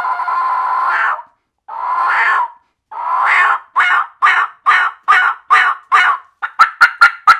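Diaphragm turkey mouth call with a latex reed, blown straight through: three long steady notes, then, as the jaw drops and opens and closes, they break into a string of hen-turkey-like yelps, about two a second. Near the end the notes quicken into short sharp notes, about four a second.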